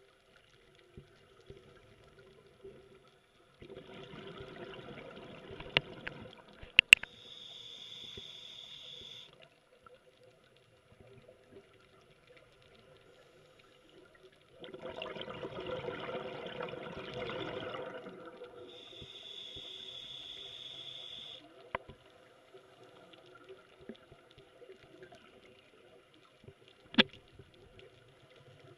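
Scuba diver breathing through a regulator underwater: twice, a rush of exhaled bubbles lasting a few seconds, each joined by a high, steady regulator hiss. A few sharp clicks in between.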